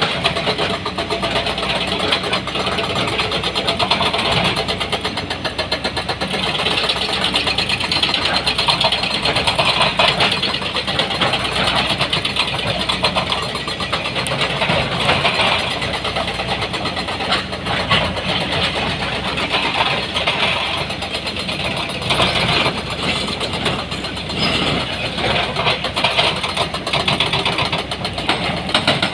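Heavy diesel engine of an excavator running steadily at work, its level rising and falling a little with load.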